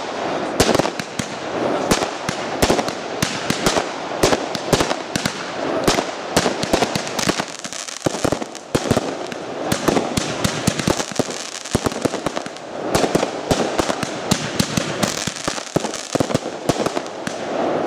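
Aerial fireworks display: a dense, unbroken run of sharp cracks and bangs from bursting shells and stars, many reports a second.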